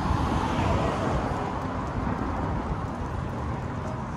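City street traffic: a steady rumble of cars passing on the road, easing off slightly near the end.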